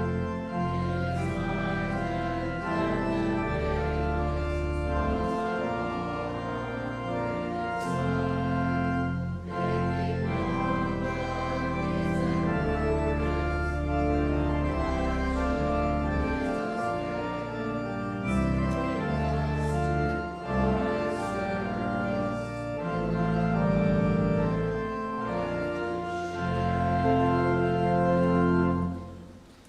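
Church organ playing held chords over a deep bass line, the chords changing every second or two, stopping near the end.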